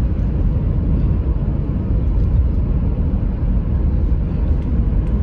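Steady low road and engine rumble inside the cabin of a moving 2016 Chevy Tahoe.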